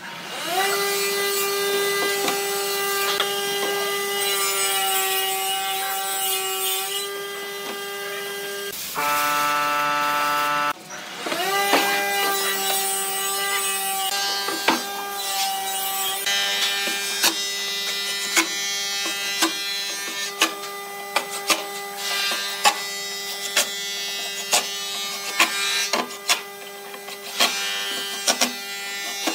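A power tool motor spins up and runs at a steady pitch, stops briefly and spins up again. In the second half, a cordless drill drives screws into a wooden cabinet lid, with short runs of its motor and many sharp clicks.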